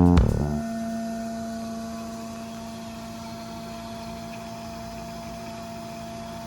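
Outro music with bass and drums stops about half a second in, leaving a steady hum with a couple of faint held tones.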